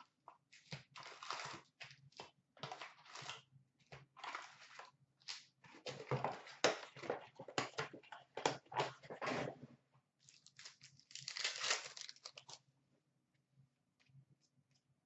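Trading-card packs being torn open and their foil wrappers crinkled, with cards handled in between, in irregular rustling bursts that stop about two-thirds of the way through.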